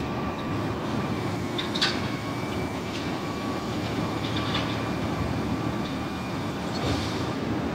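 Heil Half/Pack Odyssey front-loader garbage truck running: a steady engine rumble with a faint steady whine over it, and a few short metallic clanks, one about two seconds in and one near the end.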